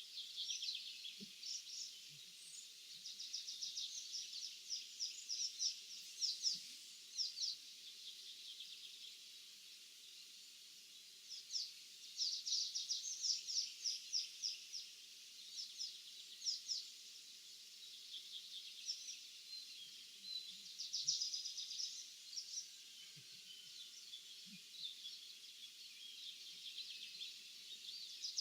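Songbirds singing in an open field: repeated high-pitched phrases of rapid chirping notes, each lasting a second or few, with short pauses between, over a faint steady background hiss.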